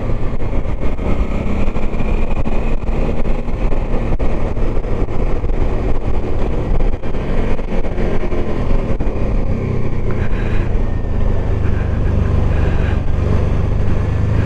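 Motorcycle engine running steadily under way, with wind and road noise mixed in. The low engine note grows stronger about ten seconds in.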